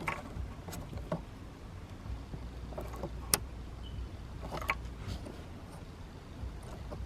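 Scattered light clicks and taps of a plastic seatbelt pretensioner plug being worked loose by hand, its locking tab prised up with a small pin, with one sharp click a little over three seconds in, over a low steady hum.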